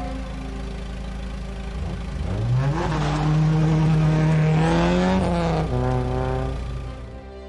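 Car engine running with a low steady hum, then revving up about two seconds in and holding high for a few seconds. It drops back to a lower rev and fades near the end.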